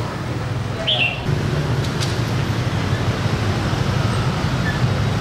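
Steady rumble of city street traffic, with a short high chirp that drops in pitch about a second in.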